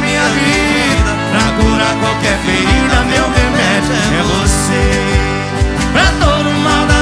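Sertanejo band playing an instrumental passage on accordion, acoustic guitar and cajon, with sustained accordion notes over a steady cajon beat.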